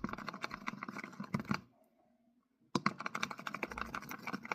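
Homemade slime being mixed and kneaded by hand, making dense rapid sticky clicking and crackling in two stretches, with a pause of about a second between them.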